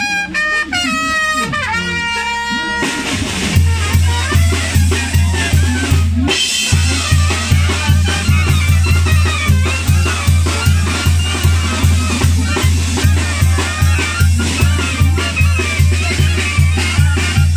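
Tamborazo band playing: clarinets and trumpets carry a melody alone at first, then about three seconds in the tambora bass drum and cymbals come in with a steady beat of about two strokes a second under the brass, with a brief break a few seconds later.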